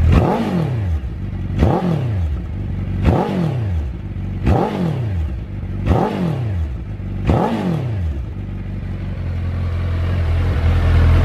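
Suzuki GSX1300R Hayabusa inline-four engine through a Yoshimura titanium dual-can exhaust, revved six times about a second and a half apart. Each rev rises sharply and falls back, then the engine settles into a steady idle.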